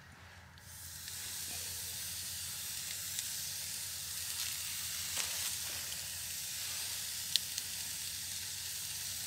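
A burger patty sizzling on a steel grill grate over campfire coals. The sizzle starts about half a second in as the patty is laid down, then holds as a steady hiss with a few sharp pops.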